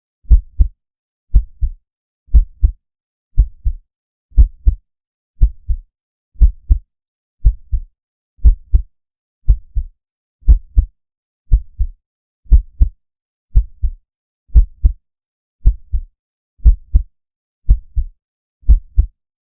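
Slow heartbeat sound effect with deep bass: steady lub-dub double thumps, about one pair a second.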